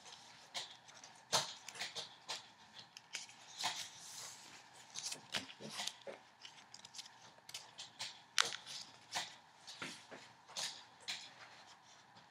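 A sheet of white origami paper being folded and creased by hand: irregular crisp crackles and rustles, with a longer sliding rustle about four seconds in.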